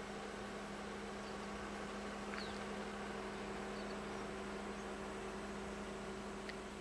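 A steady electrical-sounding hum with a few faint, short high chirps, one about two and a half seconds in and another near the end.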